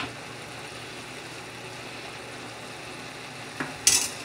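Steady low hum of a pot of vegetables cooking on the stove, with a sharp knock on the stainless steel pot at the start and a brief clatter of utensil on pot near the end.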